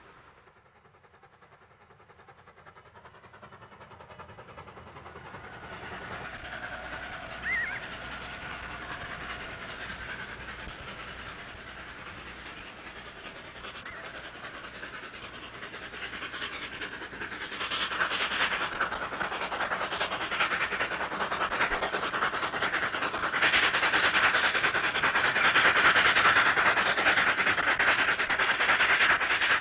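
Denver & Rio Grande Western narrow-gauge K-37 class 2-8-2 steam locomotive No. 493 working a freight train, starting faint and growing steadily louder as it approaches and passes close by.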